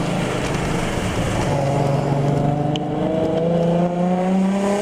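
Turbocharged Nissan Skyline straight-six engine accelerating under load, its note climbing steadily in pitch from about a second and a half in as the revs build.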